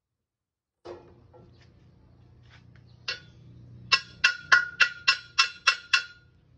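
A hammer tapping on the steel vise fence of a Bosch GCO 220 cut-off saw: a knock or two, then about eight quick ringing metal taps, roughly four a second, starting about four seconds in. The taps are knocking the fence over to set its cutting angle.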